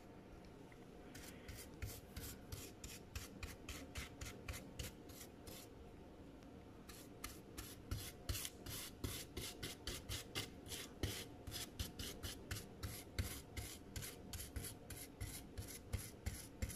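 Small brush wet with rubbing alcohol scrubbing back and forth over a laptop logic board: quick, even scratching of bristles at about three strokes a second, with a short pause about six seconds in.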